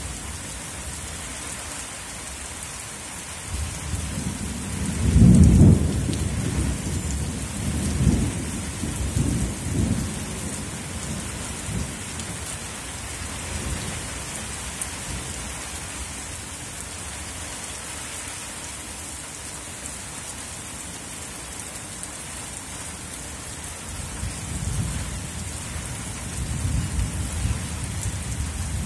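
Heavy rain falling steadily. A low rumble of thunder swells about five seconds in and rolls on for several seconds, and a softer rumble returns near the end.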